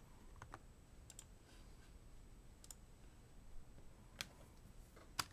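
Near silence broken by a few faint, irregularly spaced computer clicks, the clearest about four and five seconds in.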